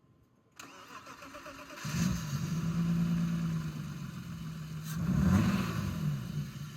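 BMW E36 straight-six being cranked on the starter and catching about two seconds in, then running steadily with a rise and fall in revs around five seconds in. The engine is being started to test a repair for a misfire that had it running on five cylinders.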